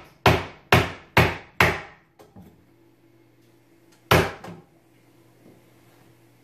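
Hammer striking a wooden framing board, tapping it level: four quick blows in the first two seconds, two light taps, then one more solid blow about four seconds in.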